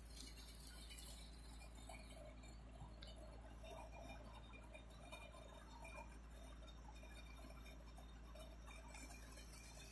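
Near silence: a low steady hum with faint small ticks and clicks from a cat licking its fur and paw.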